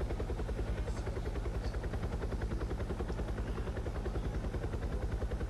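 A steady low mechanical hum that throbs evenly several times a second, with constant low hum tones beneath it.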